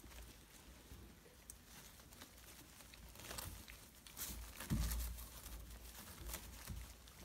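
Puppies' paws pattering and scrabbling over crinkling plastic-backed puppy pads, with light scattered crackles and a soft thump just under five seconds in.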